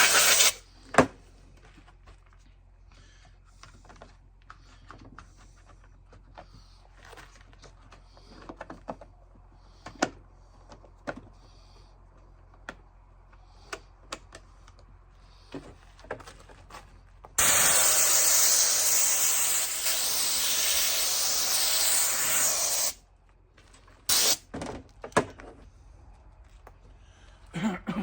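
Compressed-air blow gun hissing as it blows dust and debris out of a chainsaw: short blasts near the start and about 24 seconds in, and one long blast of about five seconds beginning about 17 seconds in. Between the blasts there are light knocks and clicks from handling the saw.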